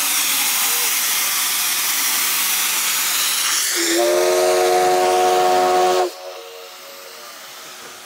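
Steam locomotive venting steam with a loud steady hiss, then about four seconds in a deep steam whistle sounds for about two seconds and cuts off sharply, leaving a much quieter hiss.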